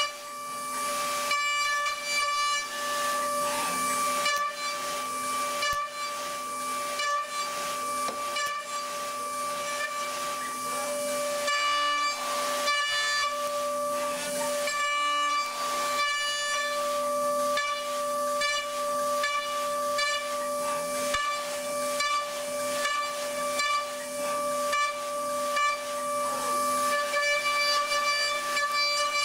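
A metal-cutting machine running: a steady high whine over a hiss, with scattered clicks.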